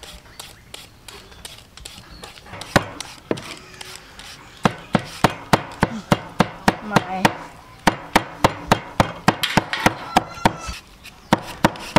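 A cleaver chopping raw pork into mince on a wooden chopping block. There are a few scattered knocks at first; then, about four seconds in, steady strikes start at about three a second, pause briefly near the end and start again.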